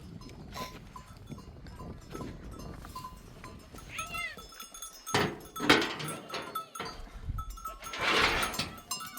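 Sheep bleating, with small livestock bells clinking. Loud knocks come around the middle and a rustling burst near the end.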